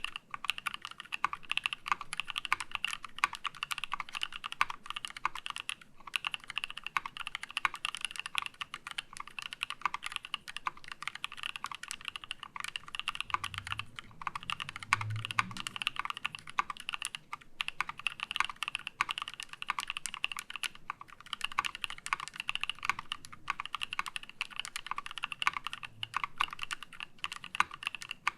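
Fast, continuous typing on a KEY65 mechanical keyboard with a titanium plate, lubed NK Cream linear switches and HammerWorks CRP Desko keycaps. The key clacks come in dense runs with brief pauses every few seconds.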